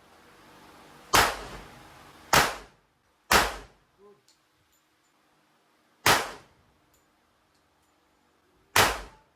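Five handgun shots: three in quick succession about a second apart, then two more at slower intervals of about three seconds. Each is a sharp crack with a short echoing tail.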